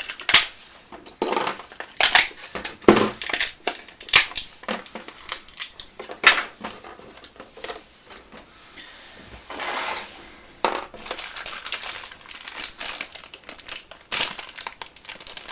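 Toy packaging being handled by hand: plastic and paper crinkling and rustling in a string of irregular crackles, with a longer smoother rustle about ten seconds in.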